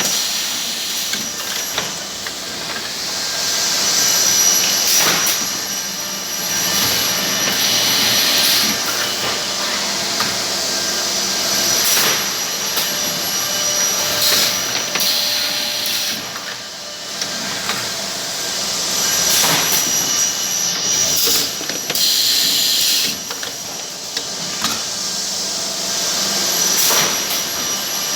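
Automated CNC machining line running: a steady whine and rush of air, with short sharp bursts and knocks every few seconds.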